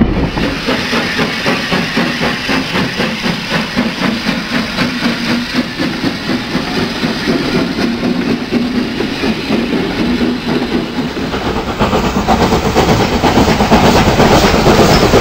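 Model train running along the track, its wheels clicking over the rails in a steady fast patter, getting louder about eleven seconds in as a locomotive draws near.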